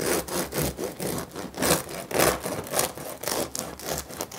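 Serrated bread knife sawing back and forth through the crisp crust of a sourdough loaf, a rasping stroke two or three times a second.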